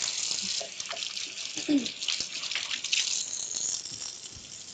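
Kitchen tap running while hands are washed under it, a steady splashing rush that eases off near the end.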